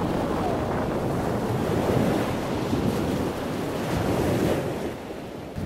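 Ocean surf breaking and washing in, with wind buffeting the microphone. The rushing drops away about five seconds in.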